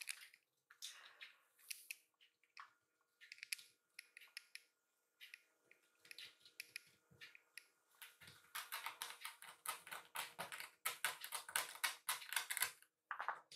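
Kittens' paws and claws tapping and clicking on a floor mat as they scamper and pounce, a scatter of light quick clicks that comes thick and fast in the last few seconds.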